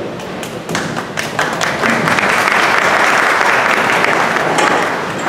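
Audience applauding: a few scattered claps at first, swelling into full applause about two seconds in, then tapering off near the end.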